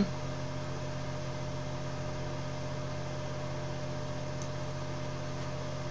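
Steady low electrical hum with a hiss over it, unchanging throughout. A single faint click about four and a half seconds in.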